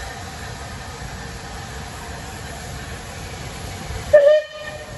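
Steam locomotive pulling a passenger train with a steady rumble and hiss, then a short, loud blast of a steam whistle near the end.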